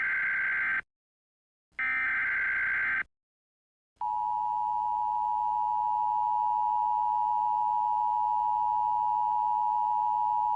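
Emergency Alert System signal. It begins with two short, screechy SAME data bursts, each about a second long. After a second's pause, the steady two-tone EAS attention signal starts about four seconds in, announcing an emergency alert.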